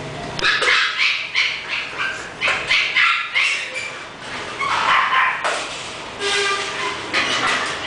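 English bulldog puppy yipping and barking: a quick run of short, high-pitched barks.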